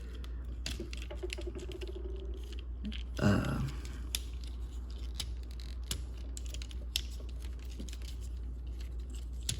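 Small plastic clicks and ticks of a Transformers Legacy Armada Optimus Prime action figure being handled and transformed, its parts and joints being moved. A brief hum and a short vocal sound come near the start and about three seconds in, over a steady low hum.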